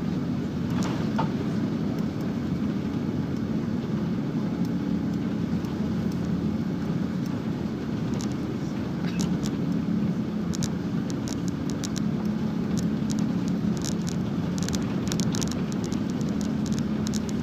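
Steady low engine and airflow noise inside the cabin of a Thai Airways Airbus A380-841, heard from a window seat over the wing, its Rolls-Royce Trent 900 engines running as the aircraft moves slowly on the ground. Scattered light clicks join it from about halfway through.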